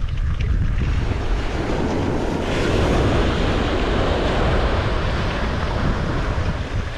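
Wind buffeting the microphone over the wash of sea waves, the wash swelling about two and a half seconds in.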